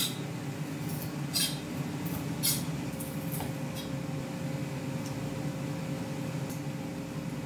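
Kitchen knife cutting raw shrimp on a wooden cutting board, the blade knocking on the board now and then, every second or so. A steady low hum runs underneath.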